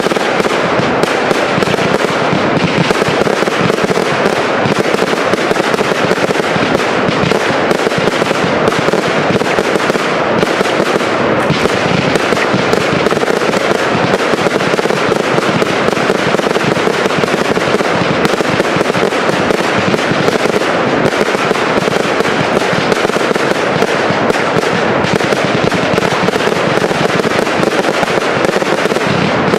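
Professional fireworks display firing a dense, continuous barrage: rapid launches and bursts run together into steady crackling, without a pause.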